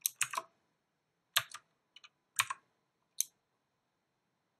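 Computer keyboard keys being typed slowly: a handful of separate keystrokes with pauses between them, stopping about three seconds in.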